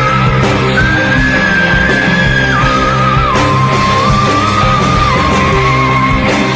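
Music: a high melody line of long held notes stepping mostly downward in pitch over steady low chords.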